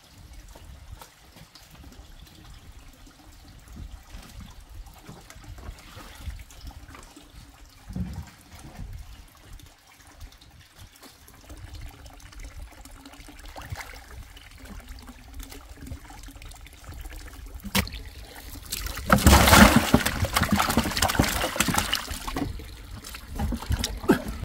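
Water trickling steadily from a pipe into a fish tank. About two-thirds of the way through, after a sharp knock, a much louder rush of splashing water sets in and lasts for several seconds.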